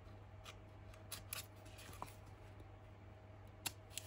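Scissors trimming a brown paper bag: a few faint, separate snips, with two sharper ones near the end.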